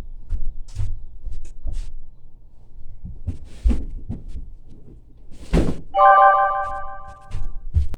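Scattered knocks and thuds with a louder bang about five and a half seconds in, then a held electronic chord of several steady tones for the last two seconds.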